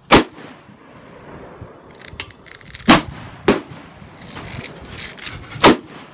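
Four loud gunshots: one just after the start, two close together about three seconds in, and one near the end. Fainter clicks and knocks come in between.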